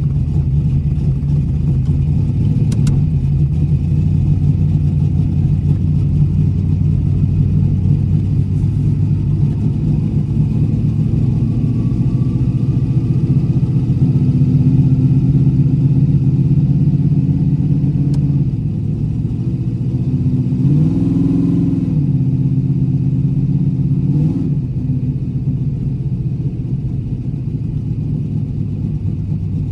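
Chrysler Imperial drag car's 318 small-block Mopar V8 running steadily at low revs as the car rolls slowly, heard from inside the cabin. About two-thirds through, the engine briefly rises in pitch and settles back.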